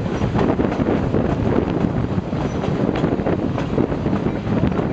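Passenger train running at speed, heard from beside a stainless-steel coach: a steady rumble and clatter of wheels on the rails.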